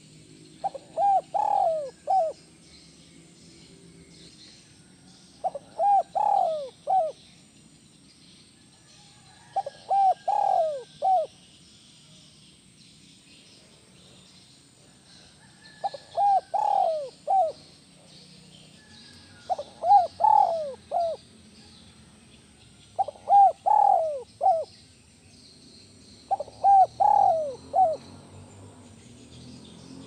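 Spotted dove cooing: seven phrases, each of three or four low notes, with pauses of two to four seconds between them.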